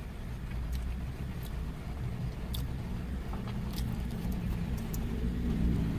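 Steady low rumble of an idling vehicle engine, with a few faint small clicks over it.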